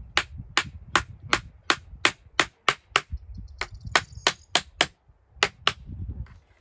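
Small hammer knocking a wooden frame together, quick sharp knocks about three a second, in runs broken by short pauses about three and five seconds in.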